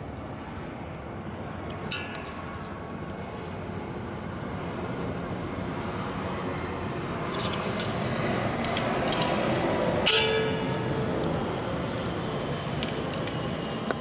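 A steady mechanical noise that grows louder over several seconds, with scattered metallic clinks; the loudest clink, about ten seconds in, rings briefly.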